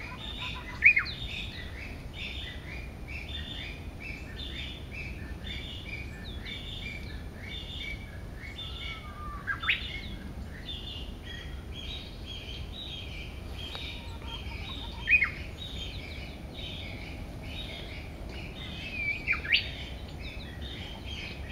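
Wild birds singing: a continuous rapid chorus of short, high chirps, with loud, sharply rising whistled phrases breaking through four times.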